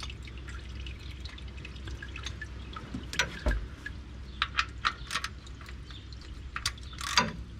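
The last of the old engine oil dripping from a Chevy Silverado's oil pan drain hole, in irregular drips over a steady low hum.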